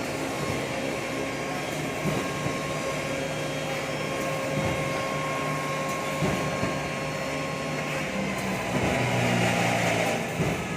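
Drink-filling machine running: a steady mechanical hum with held whining tones and a few faint knocks.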